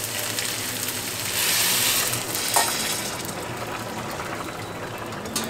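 Water poured from a stainless steel saucepan into a hot frying pan of tomato sofrito and rice, hissing and sizzling as it hits the pan. There is a sharp metallic clink about halfway through and another near the end.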